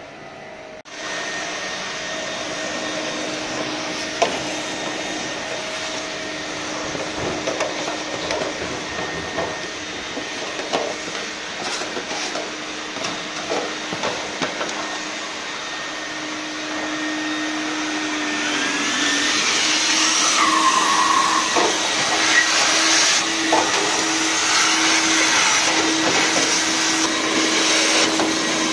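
Nevada stainless-steel wet-and-dry vacuum cleaner switching on about a second in, then running steadily with a motor hum and scattered ticks as its hose sucks towel lint and dust out of a clogged tumble dryer. It gets louder and hissier for the last ten seconds.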